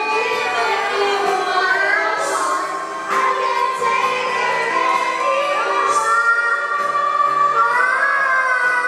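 A young girl singing a pop song into a microphone over amplified backing music.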